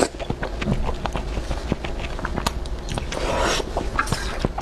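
Close-miked eating of saucy noodles: wet chewing and lip-smacking clicks throughout, with a slurp about three seconds in.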